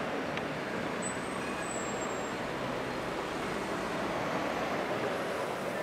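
Steady city traffic noise, an even rumble of road vehicles, with a faint high squeal for a moment about a second in.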